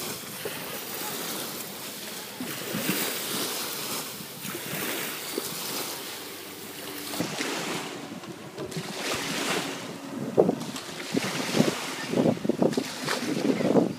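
Wind buffeting the microphone in irregular gusts over the lapping and splashing of shallow sea water.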